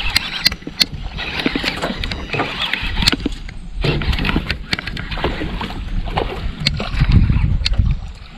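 Boat and water noise while a hooked fish is fought from a small fishing boat: a steady rush with irregular sharp clicks and knocks, and a heavier low surge near the end.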